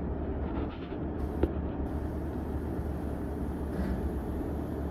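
Cat mini excavator's diesel engine running steadily while it works, with one sharp knock about a second and a half in.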